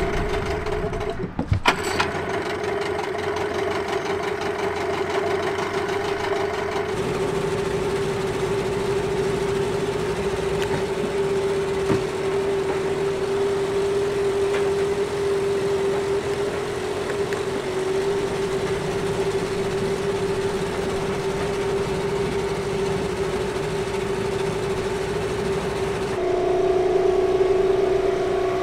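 Two-stroke outboard motor running steadily under way, with a couple of sharp knocks about a second and a half in. Near the end the pitch shifts and the engine gets a little louder.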